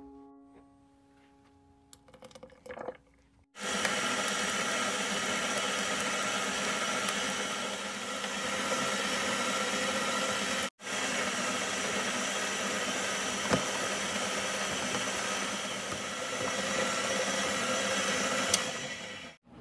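KitchenAid Heavy Duty stand mixer running steadily, its beater mixing thick cheesecake filling in the steel bowl. It starts about three and a half seconds in, drops out for an instant a little past halfway, and stops just before the end.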